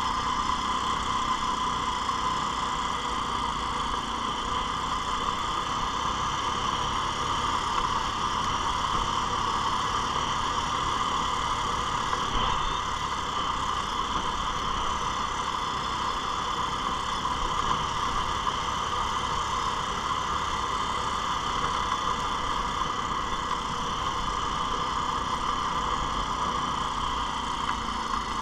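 ATV engine running at a steady, even speed while the quad rides along, with no revving or shifting.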